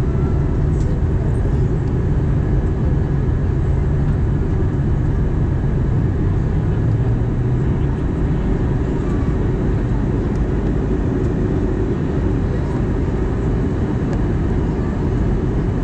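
Airbus A320 cabin noise in flight: a steady low rumble of the jet engines and the airflow past the fuselage, heard at a window seat beside the engine.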